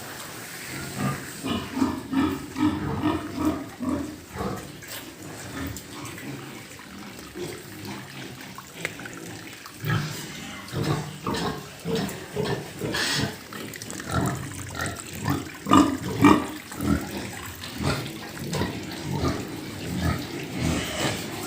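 Pigs grunting: short grunts in irregular runs, the loudest a little past the middle.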